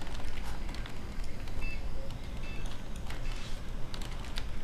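A kitten's paws shifting on a computer keyboard: a few scattered key clicks, with two short high beeps about halfway through.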